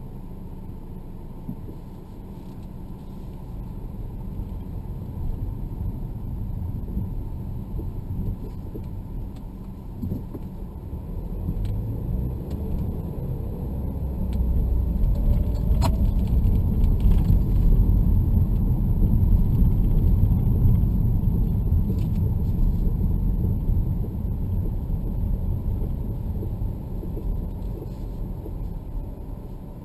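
Car driving, heard from inside the cabin: a low road and engine rumble that grows louder from about halfway and eases off near the end, with one sharp click in the middle and a few light rattles.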